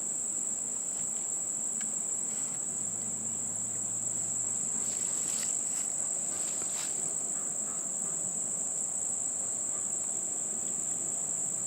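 Steady high-pitched insect chorus, with a faint low hum of honey bees around the open hive and a few light clicks near the middle.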